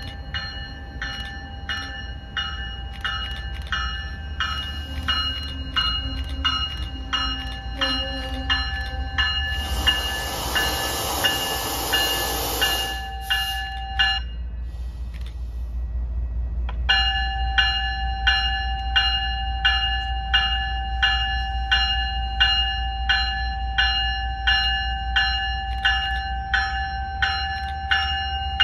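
Commuter train's bell ringing steadily, about twice a second, as the train approaches, over a low rumble that grows louder in the second half. About ten seconds in, a loud hissing burst lasts about three seconds, and the bell pauses for a few seconds after it before it resumes.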